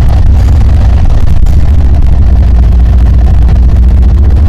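Two BNSF diesel-electric freight locomotives passing close by, their engines running with a steady, loud, deep rumble.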